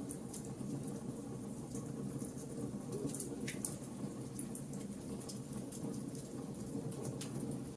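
Wood fire burning in a fireplace: a steady low rush of flames with frequent irregular small crackles and pops.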